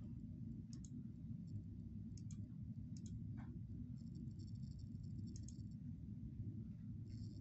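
A steady low hum with a handful of faint, sharp clicks scattered through it.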